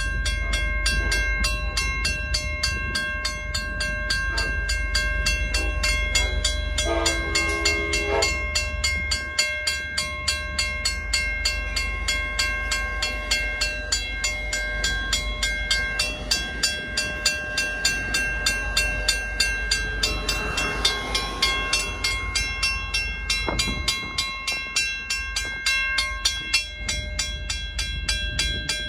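W.C. Hayes mechanical bell ringing with rapid, even strokes over the low rumble of passing trains. A short train horn blast sounds about seven seconds in.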